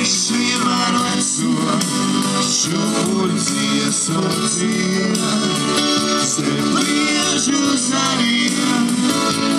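Live band music played through PA speakers: guitar and keyboard with a singer, going without a break.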